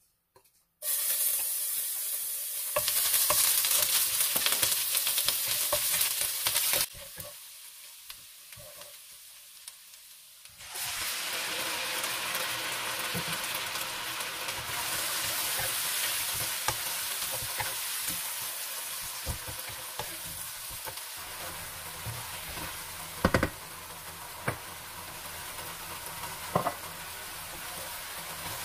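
Butter and food sizzling in a hot nonstick wok. It starts about a second in, eases off for a few seconds, then comes back steady as pieces of white fish fry and are stirred with a wooden spatula. A few sharp knocks of the spatula against the pan come near the end.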